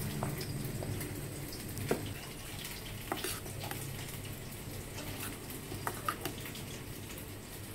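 Spoon stirring and scraping a thick ground mustard-and-spice paste in a steel bowl, with scattered light clicks of the spoon against the metal, over a low steady hum.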